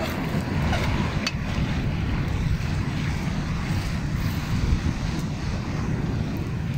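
Wind blowing steadily across the microphone, with surf washing behind it and a single light click about a second in.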